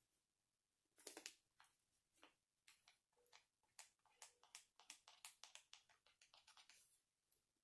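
Faint small taps of a fabric paint pen's tip dabbing on a cotton dish towel, a few at first, then several a second from about halfway in.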